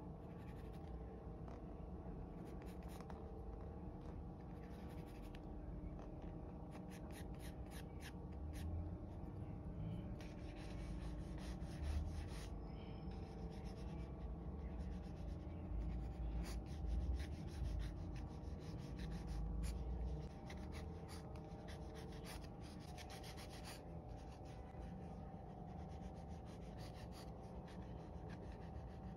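Graphite pencil scratching across drawing paper in quick sketching strokes, busiest through the middle stretch, with a few soft low thumps.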